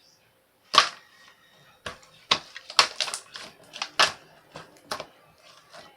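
Pink slime with add-in parts being squished and pressed by hand, giving an irregular string of sharp pops and clicks, the loudest about a second in.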